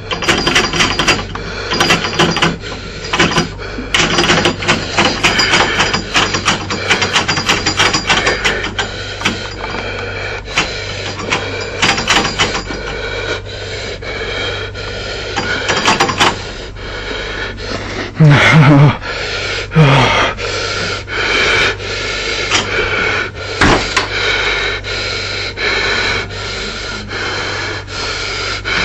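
A frightened man gasping and breathing hard close to the microphone, amid rapid rubbing and scraping noises from a moving door and the handheld phone.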